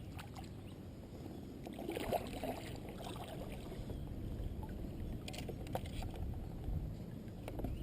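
Steady low water and wind noise around a kayak on the water, with a few faint knocks and clicks about two-thirds of the way through.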